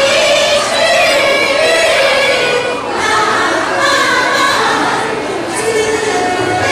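Women's choir singing together, holding long drawn-out notes.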